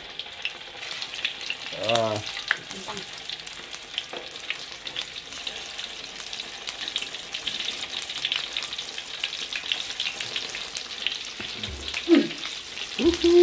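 Beef pieces sizzling and crackling as they fry in hot oil in an aluminium wok, a steady dense crackle throughout.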